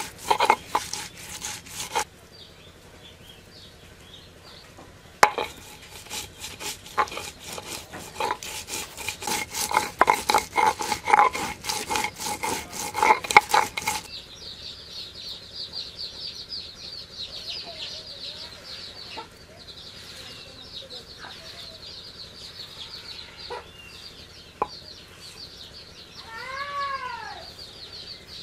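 Stone roller rubbed rapidly back and forth over garlic on a textured stone grinding slab (sil-batta), a fast run of scraping grinding strokes that stops about halfway through. After that there is steady high chirping in the background, and a chicken calls once near the end.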